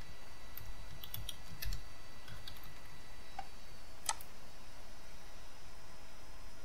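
Computer keyboard keystrokes as a username and password are typed in: a run of clicks in the first two seconds, then a few single clicks, over a faint steady hum.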